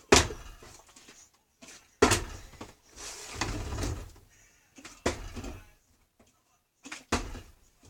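Partly filled plastic water bottle thudding down on a hard surface four times, about every two seconds, as it is flipped and lands.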